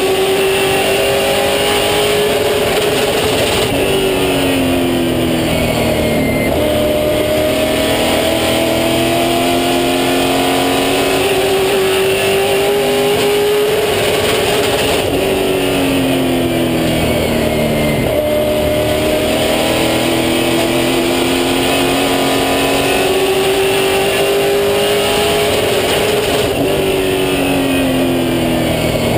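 Super Late Model race car's V8 engine at racing speed, heard from inside the cockpit. The engine note climbs steadily, then drops sharply as the driver lifts off the throttle, about every eleven seconds.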